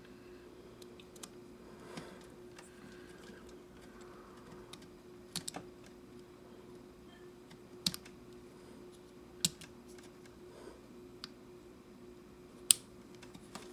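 Plastic model-kit parts being handled and fitted: scattered sharp plastic clicks and snaps, a handful spread irregularly, the loudest near the end, over a faint steady hum.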